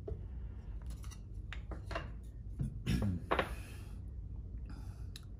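Light clicks and knocks of 3D-printed plastic and resin terrain pieces being handled, picked up and set down on a tabletop, a few scattered taps.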